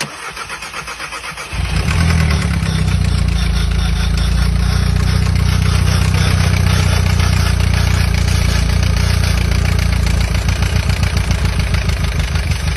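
Car engine cranked over by the starter for about a second and a half, then catching and running loud at high revs with the throttle held open.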